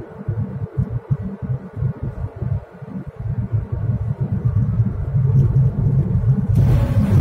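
A car's road and wind noise heard from inside the cabin: a loud, fluttering low rumble. Near the end a hiss joins in suddenly as the tyres reach the deck of a one-lane bridge.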